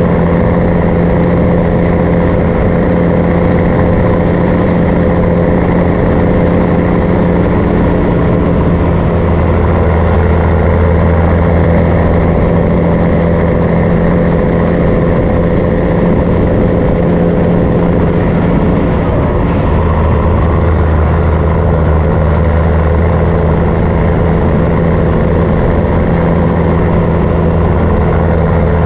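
MAN LE280B truck's diesel engine running steadily while the truck drives, its note changing about a quarter of the way in and again about two-thirds in.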